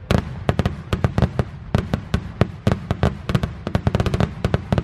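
Aerial fireworks going off in a rapid volley of sharp bangs and crackles, several a second, over a low rumble.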